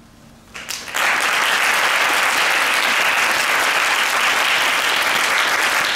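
Audience applauding: a few claps about half a second in swell within a second into steady, dense applause.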